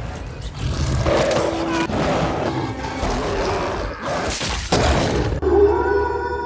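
Horror-film sound mix of a werewolf scene: dense, noisy snarling and crashing with a loud hit about four and a half seconds in. Near the end it gives way to a held, eerie music chord.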